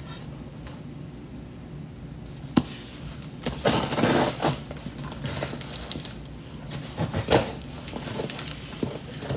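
Cardboard box and packaging being opened and handled: a sharp click about two and a half seconds in, a burst of rustling a second later, and a few more knocks and clicks later on.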